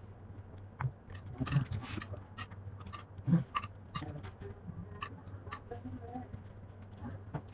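Close-up eating sounds from a ramen mukbang: irregular small mouth clicks and chewing of spicy noodles, with a few short wet slurps, over a steady low hum.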